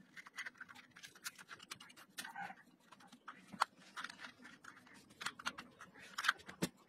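Close-up handling noise of a small plastic case, wire and tape being worked by hand: a run of scratches, rustles and small clicks, with two sharper clicks about three and a half seconds in and near the end.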